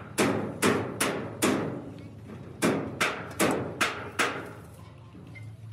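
Hammer blows on metal: two runs of four or five sharp strikes, each ringing briefly.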